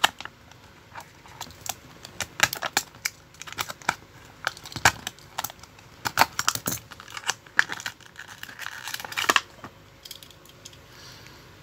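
Plastic blister pack of a 1/64 diecast car crinkling and crackling in irregular clicks as it is handled and opened, with a longer tearing stretch about eight to nine and a half seconds in.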